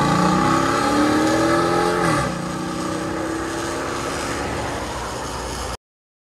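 2013 Dodge Charger's 5.7 L HEMI V8 accelerating hard away through a dual exhaust with Dynomax race bullet mid mufflers. The pitch climbs, drops at an upshift about two seconds in, then climbs again more slowly as the car grows fainter. It cuts off abruptly near the end.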